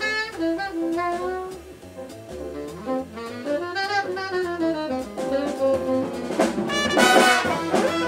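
Jazz big band playing: a saxophone solo line winds up and down over drums, then the brass section comes in loud and full about six and a half seconds in.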